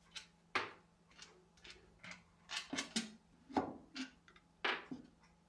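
About a dozen sharp, irregularly spaced clicks and knocks of metal parts being handled on an old horizontal milling machine during its disassembly, with a faint steady low hum behind them.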